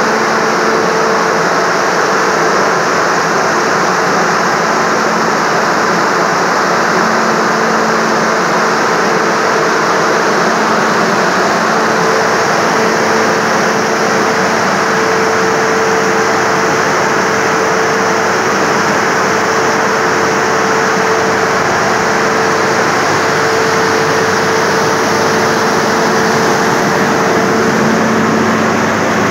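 Large fan of a corn dryer running steadily: a loud, even rush of air with a steady low hum.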